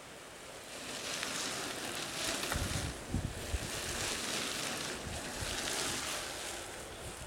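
Knobby mountain-bike tyres hissing over a sandy, gritty trail as a line of riders passes close by, swelling in a few waves as they go past one after another. A few low thumps of wind buffeting the microphone come about two and a half to three and a half seconds in.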